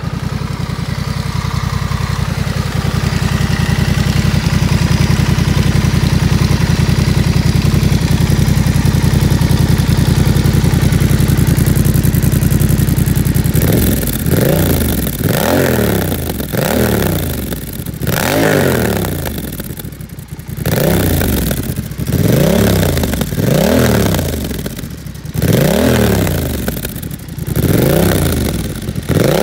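Honda Rebel CMX1100's 1084 cc parallel-twin running through a Coffman Thunder aftermarket exhaust. It holds a steady note for the first half, then is blipped repeatedly, each rev rising and falling about once every second and a half.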